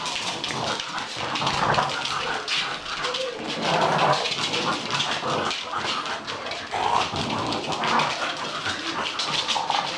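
English bulldog puppies playing, with dog noises over a constant patter of claws clicking and skittering on a laminate wood floor.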